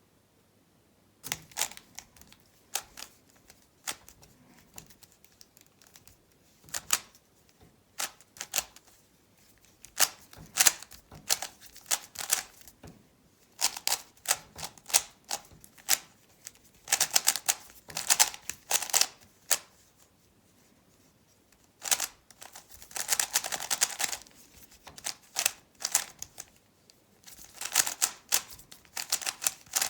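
Rubik's cube being turned fast by hand in a speedsolve: runs of rapid plastic clicking and clacking as the layers turn, broken by short pauses, starting about a second in.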